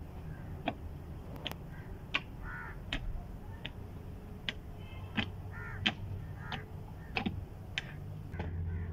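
Short-handled hoe chopping into the soil between potato ridges: a run of sharp strikes, roughly one every half second to second, unevenly spaced. Birds call now and then in the background.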